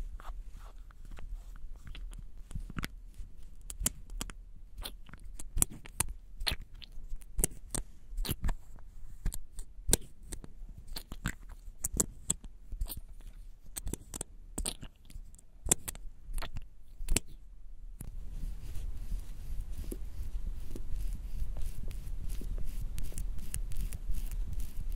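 Irregular clicks and taps of a plastic MAC Versicolour Varnish lip stain tube being handled and its cap worked open. About two-thirds of the way in, this gives way to a denser, sticky wet crackle as the applicator wand spreads the glossy stain.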